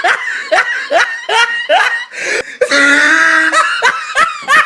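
Loud, high-pitched laughter in quick repeated bursts, two to three a second, with a longer held note about three seconds in.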